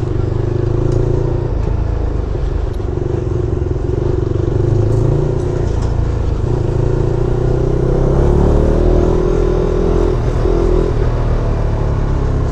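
SBM 250 S motorcycle's exhaust under way at highway speed, the engine note held steady and briefly dropping out a few times as the rider changes gear, with the pitch rising a little past the middle.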